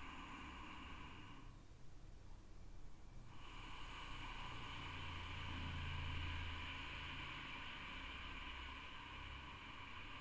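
Ujjayi breathing: a slow, hissing ocean-like breath drawn through a narrowed throat. One breath ends about a second and a half in, and after a short pause a long, steady breath begins about three seconds in.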